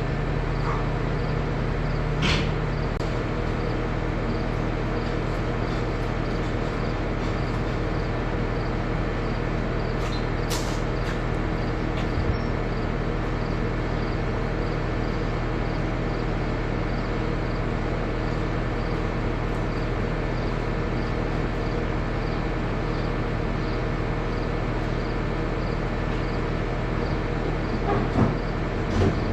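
Skid loader engine running steadily, with a couple of brief clanks and a few knocks near the end.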